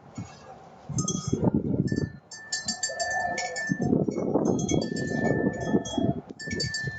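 Metallic chiming and clinking, ringing again and again, over louder irregular low noise.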